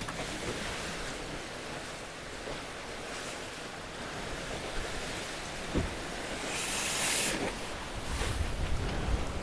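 Rush of sea water and wind as a sailing trimaran drives fast through the waves, with a louder hissing surge of water about seven seconds in and a single short knock a little before it. Wind rumbles on the microphone near the end.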